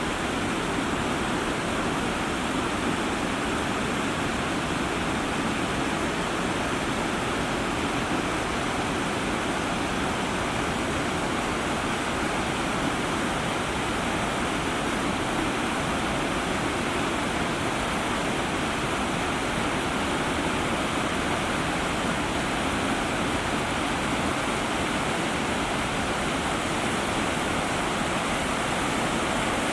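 Hagoromo Falls, a tall waterfall, with water falling and rushing in a steady, unbroken roar.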